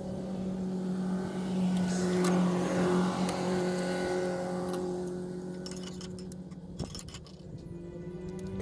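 A motor vehicle's engine running with a steady hum that swells a couple of seconds in and then slowly fades.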